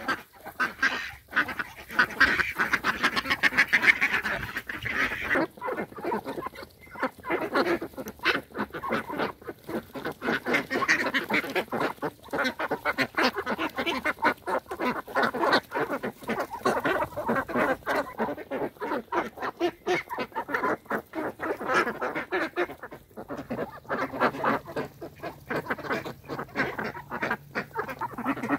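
A flock of Indian Runner ducks quacking, many calls overlapping in a continuous busy chatter, loudest a few seconds in.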